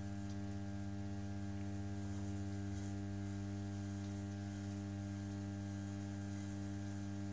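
Electric potter's wheel motor running at a steady speed, giving a steady low electrical hum with several overtones.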